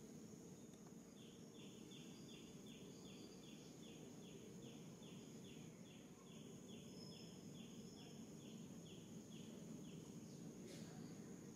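Faint natural ambience: a long run of short, evenly spaced chirps, about two and a half a second, starting about a second in and stopping near the end, over a steady high whine.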